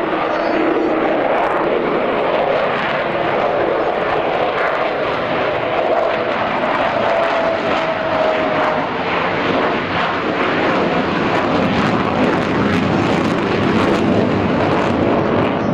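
Avro Vulcan XH558's four Rolls-Royce Olympus turbojets running at display power as the delta-wing bomber banks and flies overhead: loud, steady jet noise.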